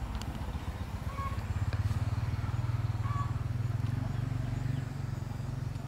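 A small engine running steadily: a low, fast-pulsing hum that grows a little louder about two seconds in.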